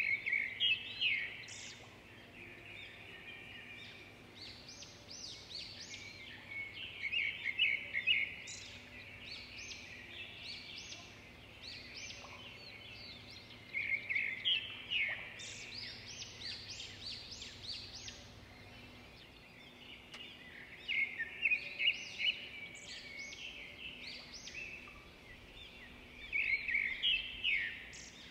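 A small bird chirping in bouts of rapid high notes, each bout lasting a second or two and coming back every five to seven seconds.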